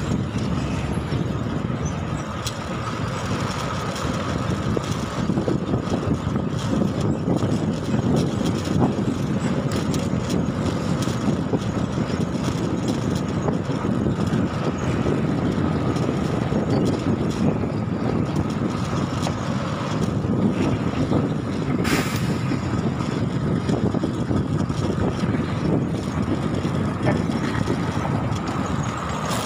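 Steady road and traffic noise heard while riding an e-bike, with a faint steady high tone and a brief hiss about 22 seconds in.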